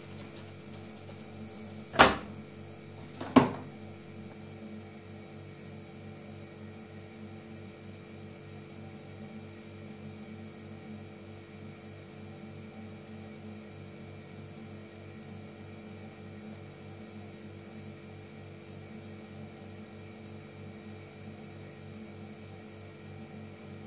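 A steady hum throughout, with two sharp knocks, one about two seconds in and another about a second and a half later.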